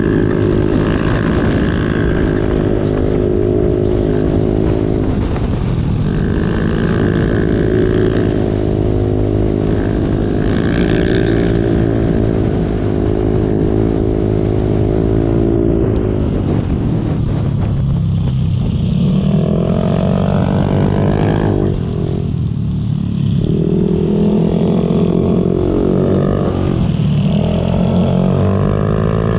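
Motorcycle engine running under way, its note rising and falling with throttle and gear changes on a winding road, with a rush of wind and road noise.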